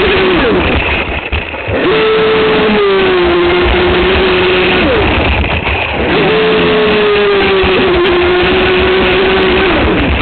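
Aquacraft SV27 RC boat's electric motor whining at speed over the rush of water, heard from a camera on the hull. The throttle eases off twice, about a second in and again around five seconds in, and the whine comes back higher each time before settling lower.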